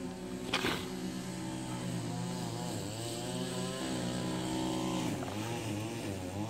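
A small engine running steadily in the background, with a single sharp click about half a second in.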